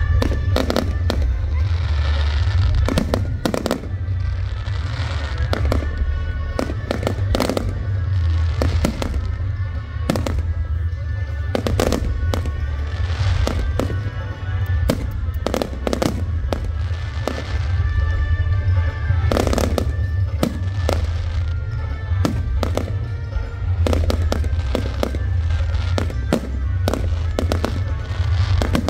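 Aerial fireworks display: a rapid, irregular series of bangs and crackles from shells bursting overhead, over a constant low rumble.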